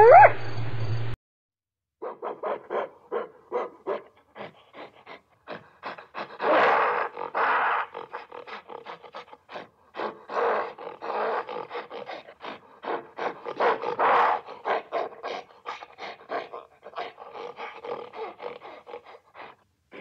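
A spotted hyena's whoop, rising in pitch, ends about a second in. After a short silence comes a gorilla's long run of short, rapid grunts, several a second, with louder spells.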